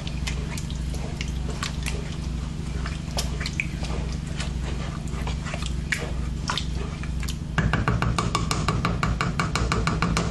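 Wooden spoon stirring thick ground-beef meat sauce in a pot, wet squishing with scattered small pops, over a steady low hum. About seven and a half seconds in, a louder, faster run of clicks begins and continues to the end.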